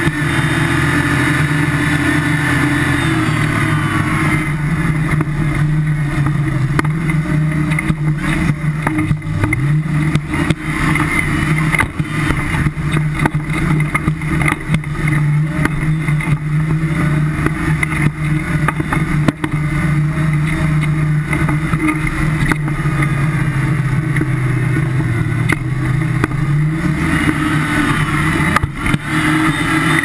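Engine of a tubular-frame off-road buggy running hard, its pitch rising and falling with the throttle, with frequent knocks and rattles from the chassis as it drives over rough ground.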